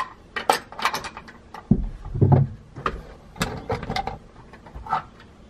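Irregular sharp metallic clicks and clinks as a magnetic pickup tool taps and scrapes against the seat-hinge hardware, fishing out a loose nut, metal plate and washer. There is a duller thump about two seconds in.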